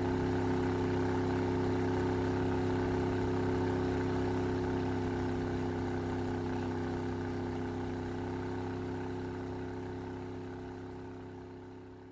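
Speedboat engine running at a steady pitch, fading out over the last few seconds.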